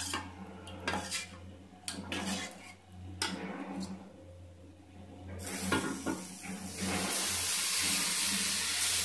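A steel tumbler clinking against a steel bowl as runny batter is stirred, then, about five and a half seconds in, batter poured onto a hot iron tawa starts a sizzle that swells into a steady loud hiss. This is wheat-flour ghavane batter hitting a pan hot enough to set it into a lacy, holed pancake.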